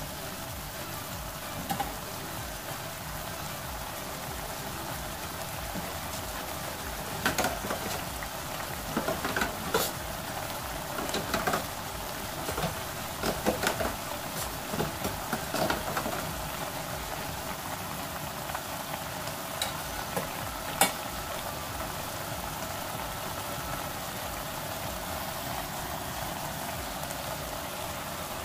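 Pork belly and aged kimchi sizzling steadily in a pot. A spatula scrapes and knocks against the pot in a run of stirring through the middle, with one more knock later.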